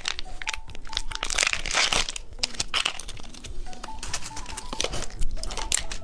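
Plastic candy packaging crinkling and rustling in a quick run of short crackles, with light background music underneath.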